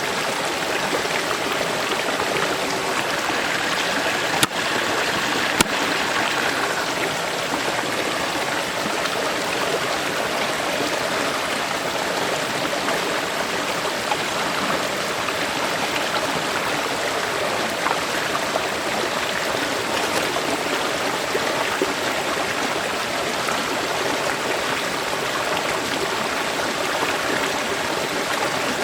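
River water flowing, a steady, even rush. Two brief sharp clicks sound about four and a half and five and a half seconds in.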